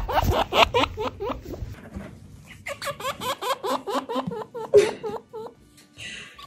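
Chinchilla grunting: a rapid string of short, pitched grunts, about four a second, in two runs with a short pause between them.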